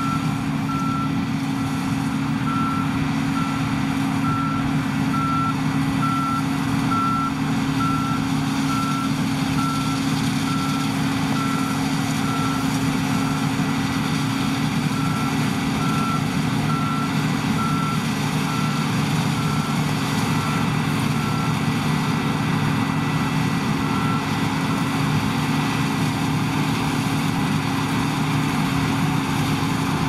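New Holland combine harvester running steadily under load as it cuts barley, a constant engine and machinery drone. Over it a high warning beep repeats about once a second, stopping a few seconds before the end.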